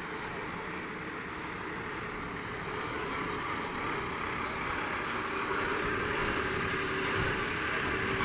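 Fire engine's diesel engine running as the truck drives slowly up and past, growing steadily louder as it comes nearer.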